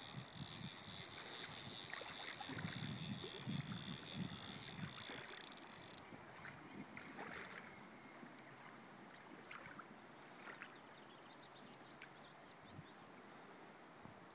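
Faint flowing river water with wind buffeting the microphone. A high, even buzz runs through the first six seconds and cuts off suddenly.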